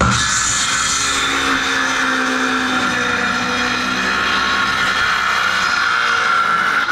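Corded circular saw starting up and cutting through a pressure-treated wood board, its motor and blade whining steadily under load.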